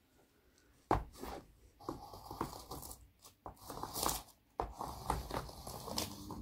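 Two graphite pencils jabbed and dragged hard over a large sheet of paper, scratching, scraping and tearing through it. A sharp stab comes about a second in, then a run of uneven scraping and ripping strokes with further jabs.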